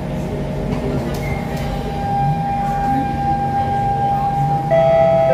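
SMRT C651 train's Siemens GTO-VVVF traction inverter and motors whining as the train accelerates away from the platform, over a low running rumble. The whine holds steady pitches, then steps louder to a new pitch near the end.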